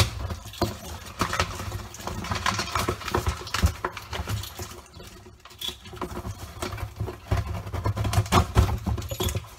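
Hands working at the packing tape on a cardboard shipping box: scratching, crackling and tearing of tape on cardboard, with a steady run of small knocks and rubbing as the box is handled.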